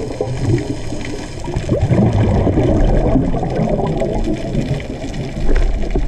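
Underwater water noise picked up by a submerged camera: a dense, continuous rumble and churn of moving water and bubbles, with scattered small clicks and crackles.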